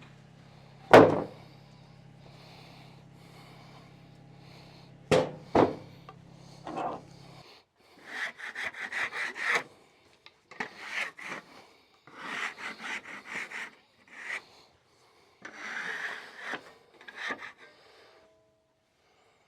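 A few sharp knocks on wood, then a hand tool scraping wood in quick back-and-forth strokes, in several short bursts.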